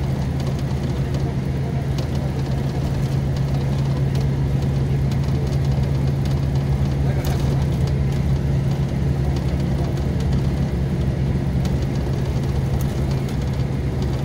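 Scania K400 bus chassis's six-cylinder diesel engine running at a steady, even note with no revving.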